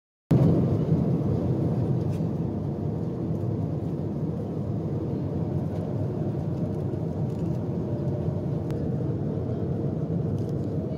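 Steady cabin drone of an Airbus A330-200 in flight, heard inside the cabin, cutting in suddenly just after the start. A few faint clicks near the end.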